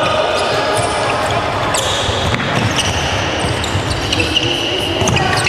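Handball bouncing and slapping on the hard floor of an indoor court, amid the steady noise of players running in a large hall, with a few short high squeaks scattered through it.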